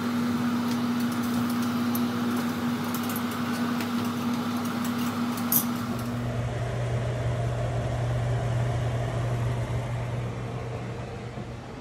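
A pot of water at a rolling boil under a steady mechanical hum. A few sharp clicks sound in the middle, and the hum drops to a lower pitch about six seconds in.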